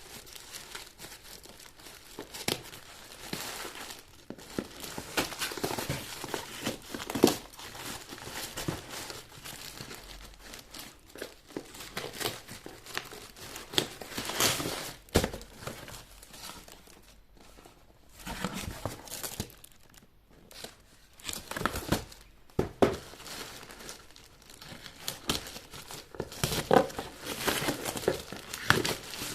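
Shoe packaging crinkling and tearing as it is unwrapped and handled by hand, in irregular bursts with sharp snaps.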